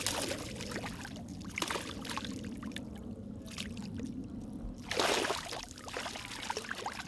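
A freshly landed topmouth culter thrashing and splashing in shallow water, in several irregular bursts, the biggest about five seconds in.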